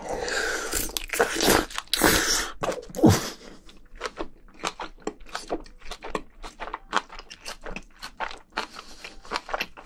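Eating sounds from a large mouthful of spicy braised seafood with bean sprouts and rice. For the first few seconds there is noisy slurping as the food goes in, then steady, crunchy chewing about three times a second.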